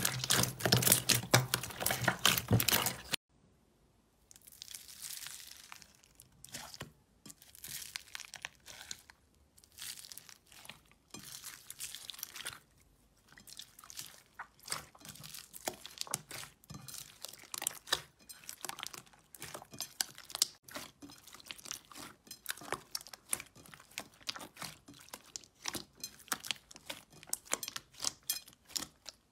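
Hands working slime. First a loud, dense squishing for about three seconds, then after a brief pause the crackling and popping of pink foam-bead slime being pressed and pulled, many small clicks in bursts.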